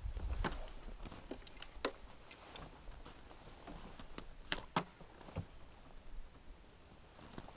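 Light rustling and scattered sharp clicks as a fabric snowmobile cover is pulled back off the sled, with a pair of stronger clicks a little past the middle.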